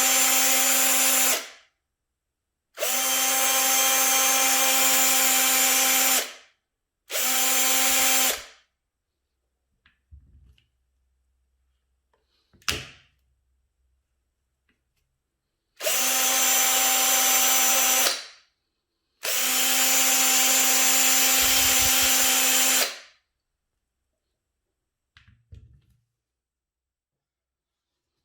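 Electric drill motor running free in five trigger bursts of about two to four seconds each, holding one steady pitch while running, with a single sharp click in the long pause between the third and fourth bursts.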